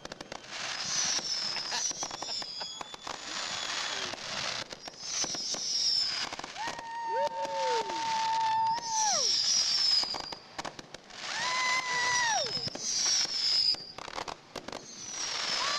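Fireworks display going off: dense crackling bursts with repeated high whistles sliding down in pitch, and twice a long steady whistle that drops away in pitch at its end.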